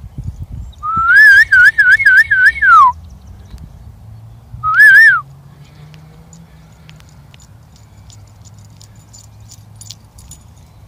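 A person whistling loud to call a dog: one long warbling whistle that rises, wavers up and down several times and falls away at the end, then about two seconds later one short whistle that rises and falls.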